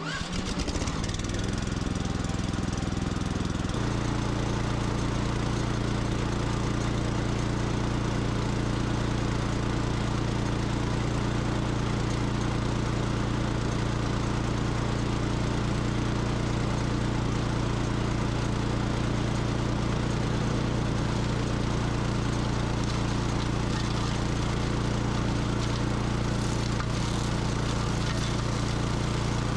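Engine of a remote-controlled flail mower running steadily. It picks up speed about four seconds in, then holds at a constant higher pitch.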